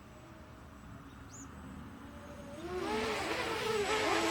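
Multirotor drone's propellers whirring in flight, faint at first, then louder from about two-thirds of the way through, with several pitches wavering as the motors change speed.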